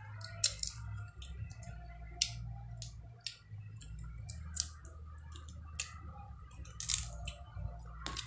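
Eating sounds from someone working through mud crab: irregular wet smacks, clicks and crunches of chewing and picking at shell, over a low steady hum.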